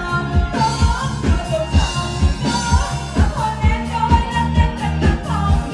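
Live band playing a Vietnamese pop song with a singer over a steady dance beat.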